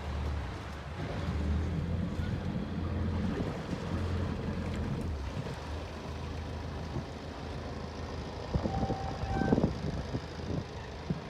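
Motorboat engine running steadily with a low hum, with wind buffeting the microphone.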